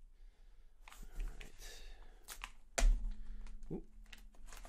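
A hobby knife cutting and scraping along the edge of a cardboard mailer: scattered scratches and clicks, one sharper knock a little under three seconds in, and a short rising squeak soon after.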